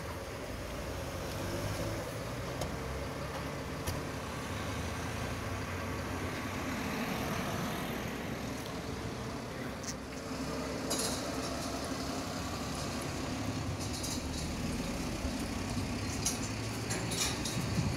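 Iveco crane truck's diesel engine running steadily, with a few sharp metallic clinks in the second half as the metal grandstand sections are handled.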